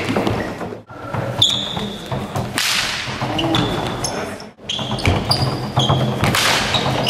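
Stick-fighting sparring on a gym floor: fighting sticks swishing and clacking, with short high squeaks. The sound drops out briefly about a second in and again about four and a half seconds in, where the clips are cut together.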